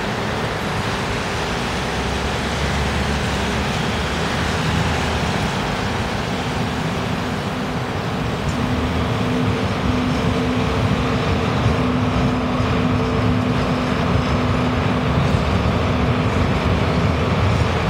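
Articulated electric tram running past and turning through a street junction: a steady rumble, with a held low hum from about eight seconds in until about sixteen seconds.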